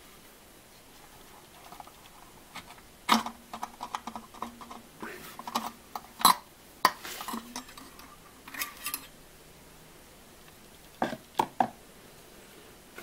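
Sharp clicks, clinks and small rattles of a metal wire retaining clip and a halogen H4 bulb being worked out of the plastic back of a 5x7 headlight housing. The clicks come scattered, with two close together near the end.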